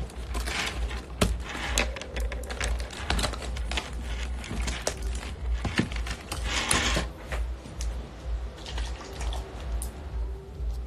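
Music with a heavy, pulsing bass beat, with scattered sharp clicks and knocks and a couple of short hissing rustles over it.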